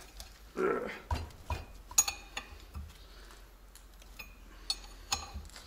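Metal parts clinking and knocking as they are handled on a workbench: a string of sharp clinks about every half second for the first three seconds, then two more near the end.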